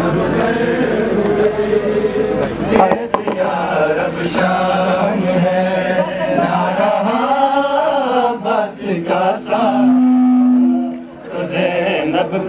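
A crowd of Shia mourners chanting together during a noha, many men's voices rising and falling, with a long held note about ten seconds in. A few sharp chest-beating (matam) slaps cut through the chant.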